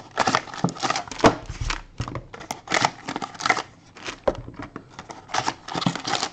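Foil trading card packs crinkling and rustling as they are handled, pulled from their box and set down on a table, in irregular crackly bursts.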